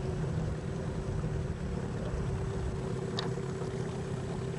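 A small boat's motor idling with a steady hum, under wind and water noise. There is one brief high squeak about three seconds in.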